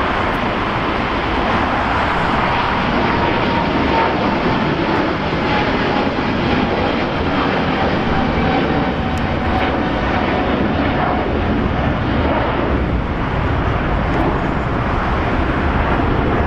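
Jet airliner engines running loud and steady, with a faint whine that slowly falls in pitch over the first several seconds.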